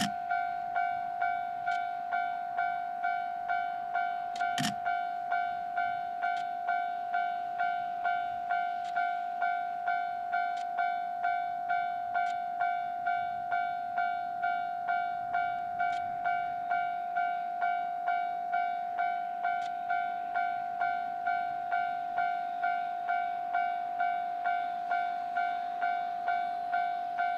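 Japanese level-crossing warning bell ringing, an electronic two-tone dinging repeated steadily about three times every two seconds: the crossing is closed for an approaching train. A single sharp click sounds about four and a half seconds in.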